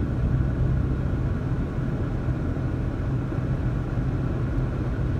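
A car driving, heard from inside the cabin: a steady low rumble of engine and tyres on a snow-covered road.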